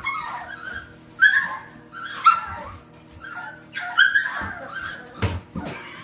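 Bulldog puppies whining and yelping for their food, a run of short high-pitched calls about a second apart. A couple of soft knocks come near the end.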